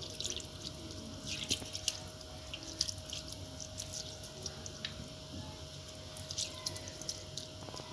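Hands working steamed vermicelli strands in a terracotta dish of water, with irregular small splashes and drips as the strands are pushed under and pulled apart.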